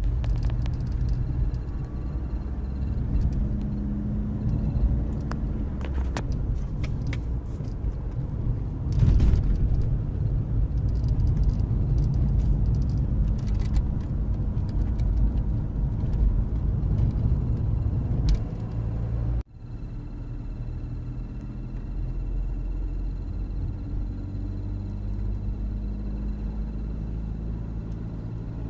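Mercedes C-Class heater blower fan chirping from behind the dashboard, in short sharp chirps scattered over the car's steady low rumble. The chirp comes from a dirty blower fan that needs cleaning or replacing. About two-thirds of the way through the sound cuts abruptly and turns steadier.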